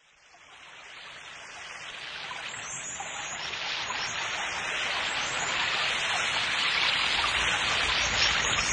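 A steady rushing sound of water, fading in over the first five seconds and then holding level, with faint scattered drips in it.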